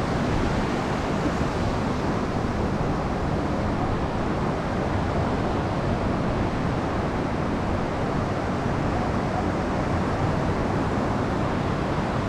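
Steady wind noise on the microphone over the wash of ocean surf, with no distinct events.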